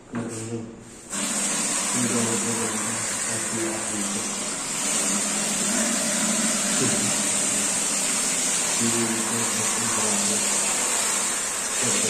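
Steady loud rush of spraying water that starts suddenly about a second in, with a low motor hum that comes and goes over it.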